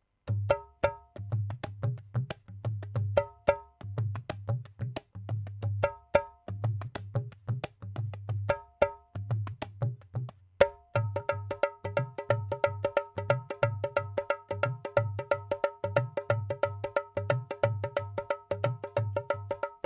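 Dholak drum loop: low bass-head strokes under sharp, ringing treble-head strokes in a repeating pattern. About halfway through, the treble strokes change to a denser, faster run.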